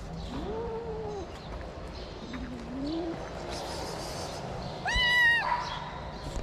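Cats in an aggressive confrontation between an adult calico and a frightened kitten: two low, drawn-out cat yowls, then a loud, high-pitched kitten cry about five seconds in.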